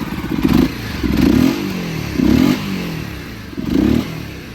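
Honda CBR250RR motorcycle engine being revved four times in short blips, each rising and falling back.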